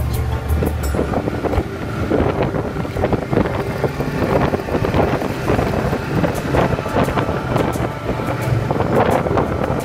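Snowmobile running at speed along a trail, with wind buffeting the microphone and many short knocks and rattles from the bumpy ride.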